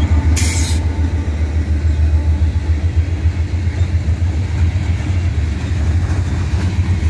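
Freight train rolling past close by: a steady low rumble from the mid-train AC44C6M diesel locomotive that has just passed, mixed with the wheels of covered hoppers and tank cars on the rails. A brief hiss comes less than a second in.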